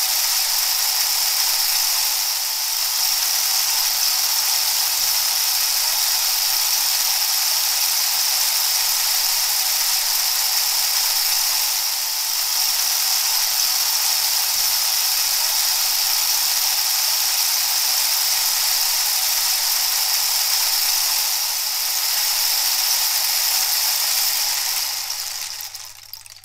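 A steady rushing hiss with slight dips about every ten seconds and a faint low hum beneath it, fading out near the end.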